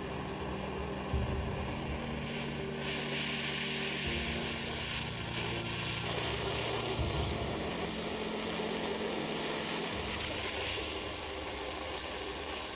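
Small handheld gas torch's pencil flame hissing steadily as it heats the soldered chain-link ring of a silver case to free it.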